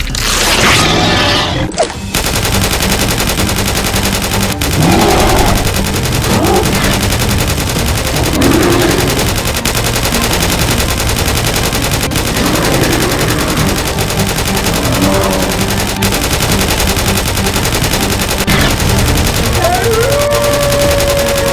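Automatic gunfire sound effect: a continuous, rapid stream of shots starting about two seconds in, with a few voice cries mixed in. A steady held tone comes in near the end.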